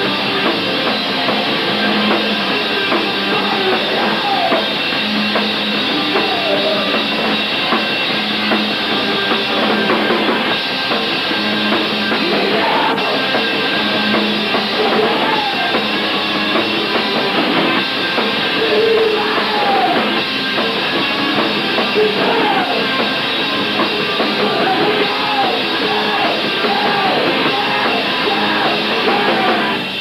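Live post-hardcore rock band playing at full volume: electric guitar, bass guitar and drum kit.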